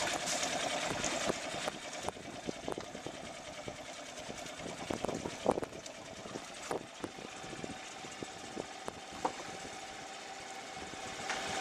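Suzuki 140 outboard motor idling steadily, with scattered light knocks and clicks.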